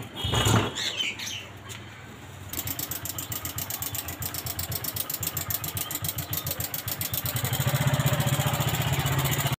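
A brief loud clatter, then about two and a half seconds in a motorcycle engine starts and runs at idle with a rapid, even beat, getting louder near the end.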